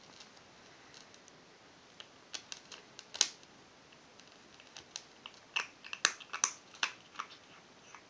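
A kitten crunching dry kibble: irregular crisp crunches and clicks, in two bursts of chewing, one about two seconds in and another past the middle.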